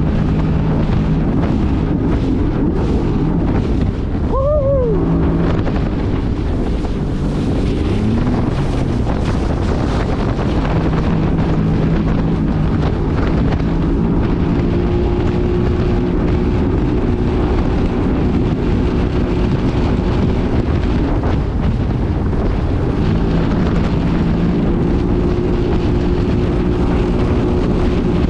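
Yamaha EX Sport WaveRunner's three-cylinder four-stroke 1049cc TR-1 engine and jet pump running at speed, under heavy wind noise on the microphone and rushing water. About four seconds in, a brief higher whine rises and falls.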